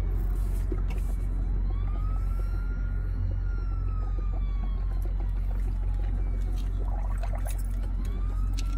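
Emergency-vehicle siren wailing, its pitch slowly rising and falling about every six seconds, over a steady low rumble.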